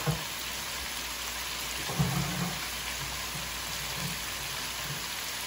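Floured shrimp deep-frying in hot oil in an electric deep fryer, a steady crackling sizzle, with a soft knock about two seconds in.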